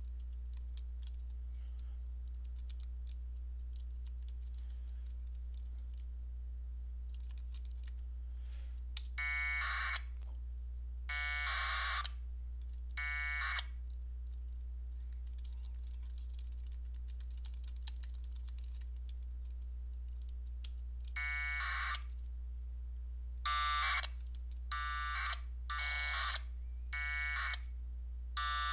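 Faint clicking of computer-keyboard typing, then a string of short buzzing packet-radio data bursts from the radio. There are three bursts a couple of seconds apart about a third of the way in, then six more in quick succession over the last third. A steady low hum runs underneath.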